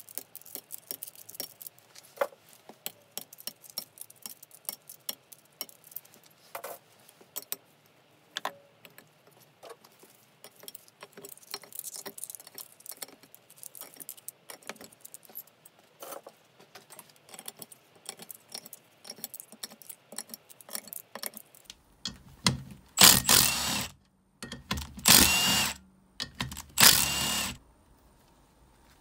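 Metal hand tools clicking and clinking against a Mitsubishi 4G63 cylinder head in irregular small knocks. Near the end come three loud bursts of about a second each.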